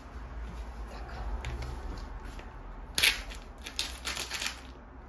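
Plastic packet of sliced Gouda being picked up and handled, crinkling in a sharp burst about three seconds in and crackling on for a second or so after, over a low steady hum.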